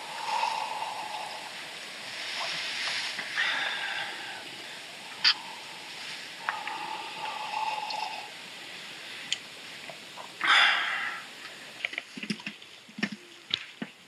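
Slurping sips of a drink from a metal cup: several separate wet, throaty sucking noises, the loudest about two-thirds of the way through. A run of short knocks and rustles comes near the end.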